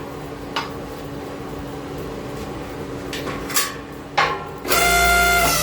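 Low steady hum with a few short knocks, then background music starts loudly near the end.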